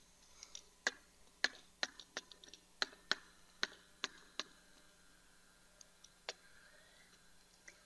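Stylus or pen tapping and clicking against an interactive whiteboard while numbers are written: a run of sharp, irregular clicks, closely spaced for the first four seconds or so, then a few scattered ones later.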